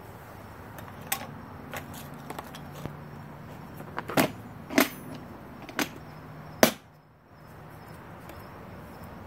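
About half a dozen irregular sharp knocks or taps over a steady low background hiss, the loudest near two-thirds of the way in, followed by a brief drop in the background.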